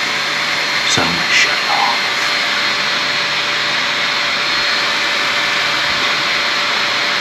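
Loud, steady whoosh of an electric fan running close to the microphone, with a faint steady hum in it. A couple of short clicks come about a second in.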